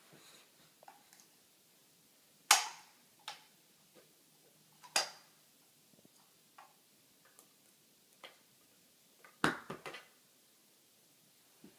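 Sharp clicks and knocks of small hard toys, a small metal tin among them, being handled and knocked about by a baby. The sounds are scattered single taps, with louder ones a couple of seconds in and about halfway, and a quick run of knocks near the end.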